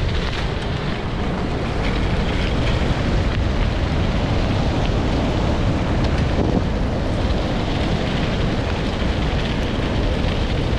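Steady wind rush and rumble on the microphone from travelling at speed behind a four-dog team on a dirt track.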